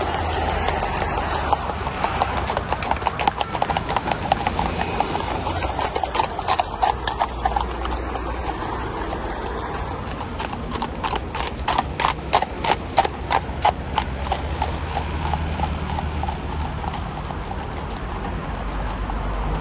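Horses' hooves clip-clopping on asphalt as horse-drawn carriages trot past, the hoofbeats loudest and sharpest a little past halfway. A steady low rumble runs underneath.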